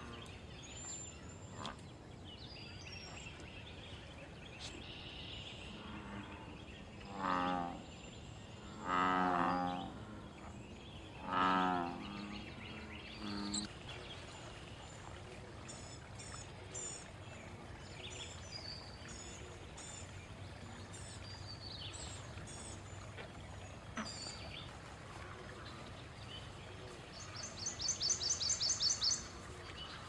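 Male American bullfrog calling: three deep, low, droning calls in quick succession a few seconds in, then a short fourth.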